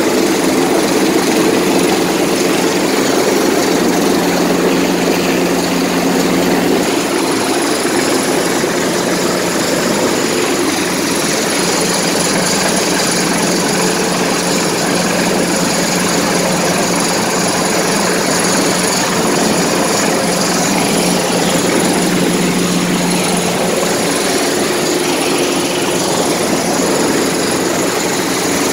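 Helicopter hovering close overhead: steady rotor and turbine noise mixed with the rush of rotor downwash, with a high whine running through it.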